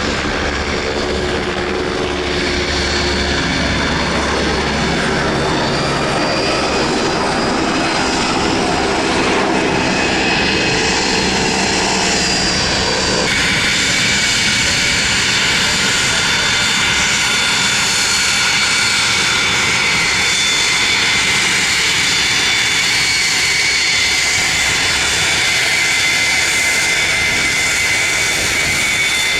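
Cessna Citation II/SP business jet's twin turbofan engines running with a steady high whine over loud jet noise. The sound changes abruptly about halfway through, after which the whine holds steady.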